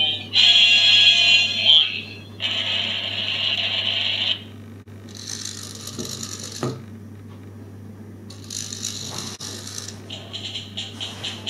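Music from the small speaker in a 3D-printed ashtray, cut off about four seconds in. Then the ashtray's flip-up mechanism whirs twice, with a light thump, as its top opens and closes. Near the end a drum loop starts through the speaker at about three beats a second.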